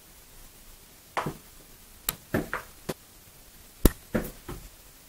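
A series of irregular sharp knocks and taps, about eight in all, the sharpest a little under four seconds in.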